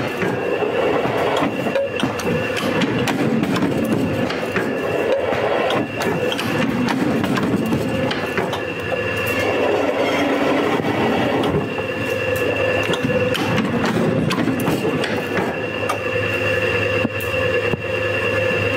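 Guillotine paper cutter running: a steady machine hum, with frequent short clacks and rustles as stacks of paper are knocked together and slid across the metal table.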